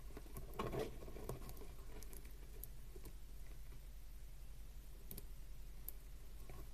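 Faint small clicks and rustles of beads and beading thread being handled and pulled through, with a brief louder rustle under a second in, over a steady low hum.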